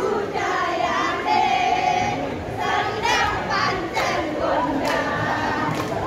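A group of women's voices singing together, with some notes held for about a second.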